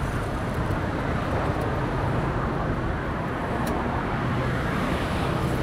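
Steady road traffic noise of a busy city street heard from a moving bicycle, with a couple of faint clicks.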